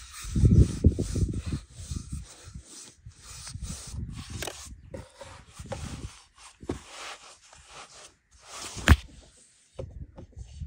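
Irregular rubbing and rustling handling sounds with scattered small knocks, and one sharp knock about nine seconds in.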